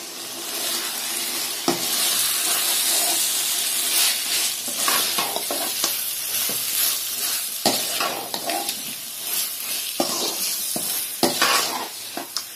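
Chicken pieces sizzling in oil and onion-tomato masala in a wide metal kadai while a perforated metal ladle stirs and scrapes them. There are several sharp clacks of the ladle against the pan.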